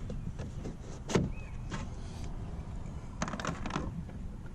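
Clicks and knocks of hands working on a plastic under-dash trim panel: one sharp knock about a second in and a quick cluster of clicks around three seconds in, over a steady low hum.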